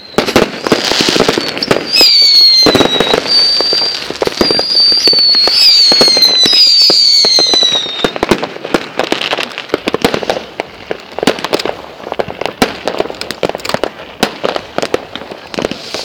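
Fireworks going off in rapid succession: dense crackling bangs with high, wavering whistles over the first half, thinning to scattered crackling pops in the second half.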